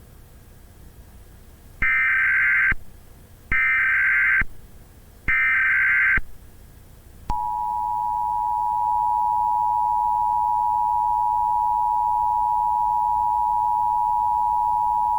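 Emergency Alert System tones: three short screechy bursts of digital header data, about a second each with short gaps, then, about halfway through, the steady two-tone attention signal held without a break.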